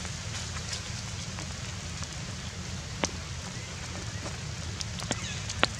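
Steady rain falling on wet ground, with a few sharp ticks, the loudest just before the end.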